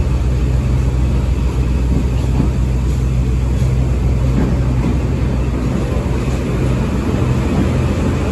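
Sagano Romantic Train running along the track, heard from on board: a loud, steady low rumble with an even rushing noise over it.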